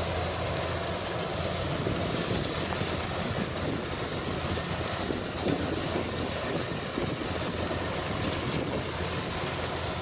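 Combine harvester running steadily in a rice field, an even engine and machinery noise with a low hum.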